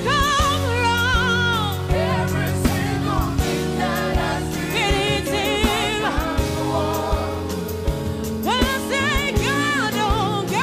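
A gospel song performed live: a woman sings long, wavering held notes with vibrato over a full band with drum kit and keyboards.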